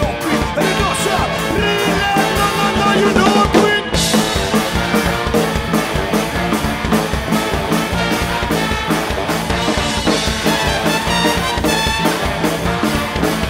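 Live band music: a horn section of baritone saxophone, two trumpets and trombone playing together over drum kit and electric guitar, with a steady beat.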